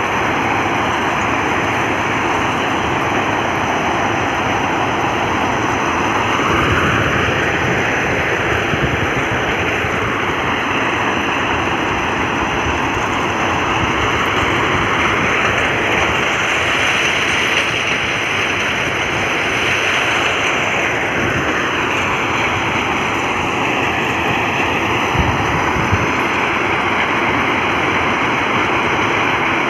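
Railway track ballast cleaning machine working: its engines, excavating chain and spoil conveyor make a steady, dense mechanical noise while dirt and stones are thrown off the side. A couple of brief knocks stand out, one about a quarter of the way in and one near the end.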